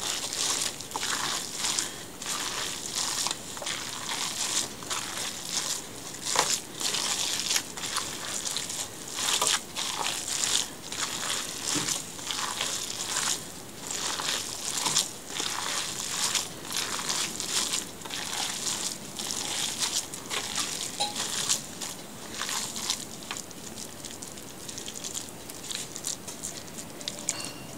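Hands kneading and squeezing a wet ground-cod and breadcrumb mixture in a stainless steel bowl: a quick, irregular run of mashing strokes, softer over the last few seconds.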